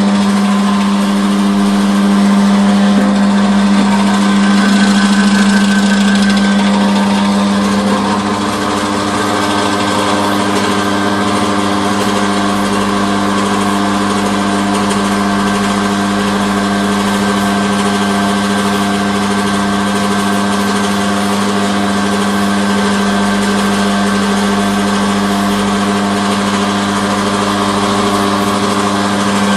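Electric potato slicer's motor running at a steady speed while it cuts potatoes into wavy slices: a loud, constant low hum with a whirring hiss over it.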